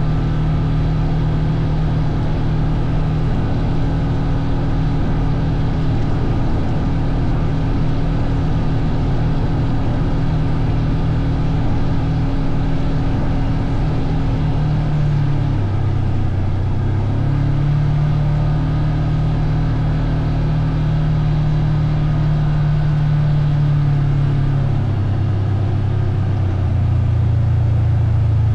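Vehicle engine running steadily under way. Its pitch dips about halfway through, comes back up, and drops again near the end as the throttle or speed changes.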